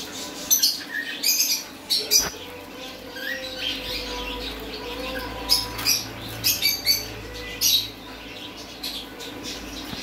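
Parrots squawking: short, harsh calls in quick clusters, a few in the first couple of seconds and a run of them from about five and a half to eight seconds in.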